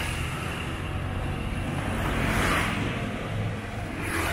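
Street traffic: a steady low engine hum, with a louder swell of noise about two seconds in and a short burst near the end.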